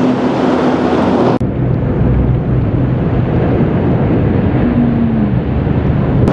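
Passenger RIB speedboat's engines running at high speed, with the rush of its hull and spray over the water. An abrupt cut about a second and a half in leaves a duller, lower rumble, and a short falling engine tone comes a little before the end.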